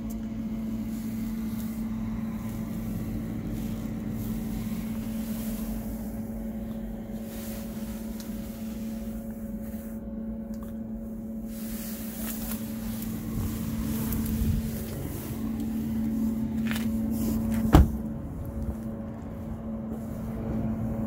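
Steady low hum, then a Toyota 4Runner's door shutting with one loud thump about three-quarters of the way through.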